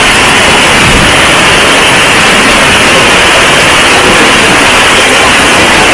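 Heavy rain pouring steadily, a loud even hiss with no breaks.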